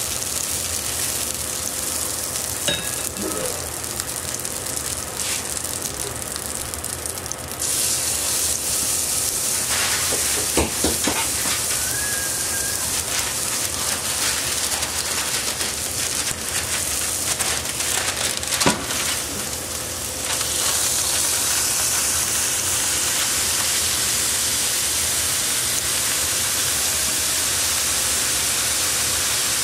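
Ground beef sizzling in hot oil in a Smithey cast-iron skillet: a steady frying hiss that gets louder about eight seconds in and again about twenty seconds in, as the meat is pressed flat. A few sharp knocks come in between.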